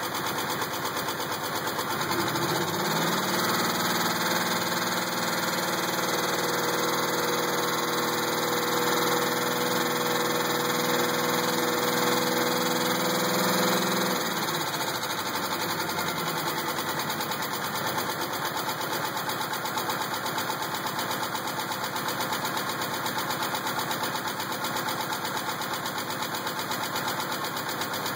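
The supercharged 3.8-litre V6 of a 2000 Pontiac Grand Prix GTP runs with a steady knock. About two seconds in it revs up and holds, then eases back to idle near the middle. The knock stays consistent with RPM; the owner doesn't think it is the flex plate and thinks it might be a spring.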